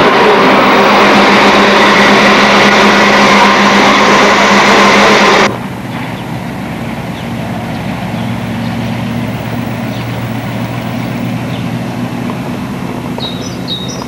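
Loud factory-floor noise with a steady electrical hum from the induction-furnace hall, which cuts off abruptly about five and a half seconds in. After that a quieter outdoor sound follows, with a truck's engine running steadily, and a few bird chirps near the end.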